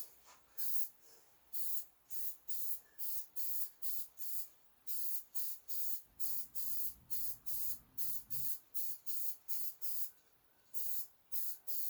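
Aerosol spray-paint can fired in short hissing bursts, about two a second, touching up rusty spots on a snowblower part. There is a brief pause near the end.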